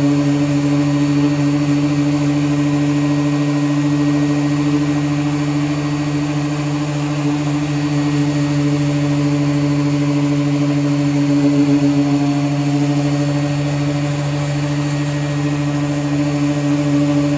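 Electric power sander running steadily at an even pitch, a constant hum over a hiss.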